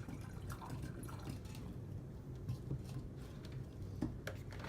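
Scattered light clinks and scrapes of a spoon working thick chocolate cake batter in a bowl, over a low steady hum.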